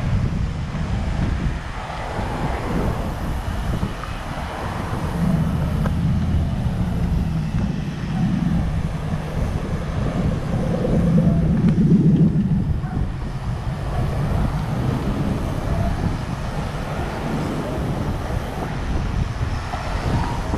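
Road traffic noise: a steady low rumble with vehicle engines swelling as they pass, loudest about twelve seconds in.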